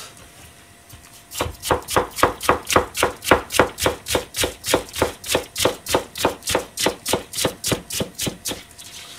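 Kitchen knife slicing Chinese cabbage into strips on a cutting board: a steady run of quick chops, about four a second. The chops start about a second and a half in and stop shortly before the end.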